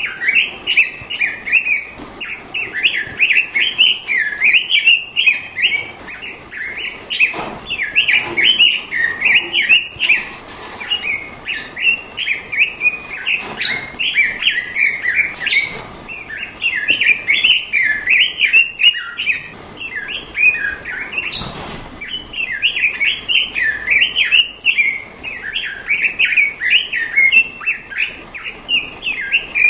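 Straw-headed bulbul (cucak rawa) singing a fast, continuous warbling song of rapid notes, with short lulls about a third of the way in and about two-thirds in.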